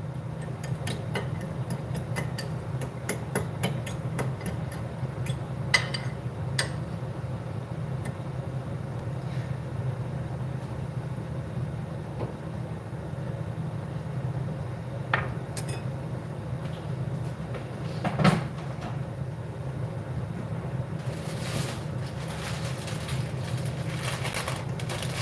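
Metal fork clinking and scraping against a ceramic bowl while mashing butter into potatoes: quick repeated clicks for the first several seconds, then a few scattered knocks, the loudest about 18 seconds in, over a steady low hum. A hiss starts a few seconds before the end.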